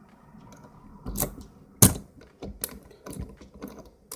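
Eurospec 6-pin euro cylinder lock being handled: a series of sharp metallic clicks and knocks at uneven intervals, the loudest about two seconds in.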